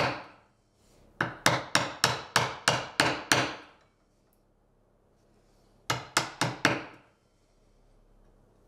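Mallet blows on a bench chisel chopping out the waste between dovetails in a tail board. It comes as quick runs of sharp strikes, about four a second: about nine blows, then a pause, then four more about six seconds in.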